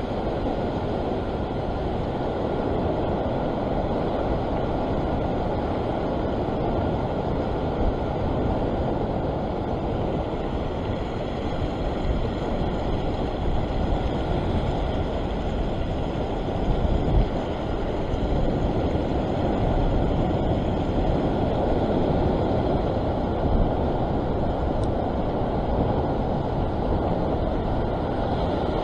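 Sea surf washing over a coastal rock ledge: a steady, rough rush of water with no clear breaks.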